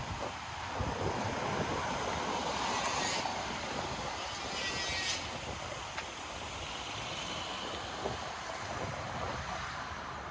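Steady traffic noise on a city street, swelling in the first few seconds as a vehicle passes, then easing off.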